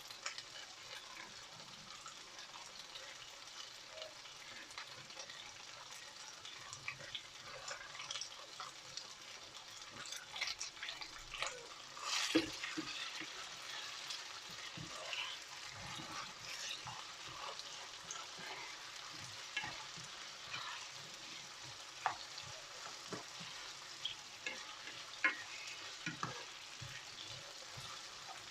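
Red and green peppers sizzling as they fry in oil in a pan, with crackles and occasional clicks of a utensil stirring against the pan; the loudest clatter comes about halfway through.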